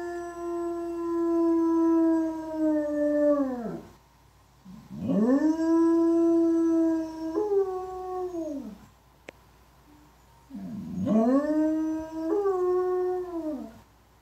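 Coonhound howling three long howls in answer to police sirens. The first is already going and trails off with a falling pitch about four seconds in. The second drops a step in pitch partway through, and the third jumps up briefly before both fall away.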